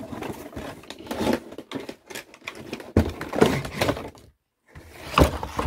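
Cardboard box being handled and its flaps pulled open: scraping and rustling of cardboard with knocks, the loudest about three seconds in and again just after five seconds.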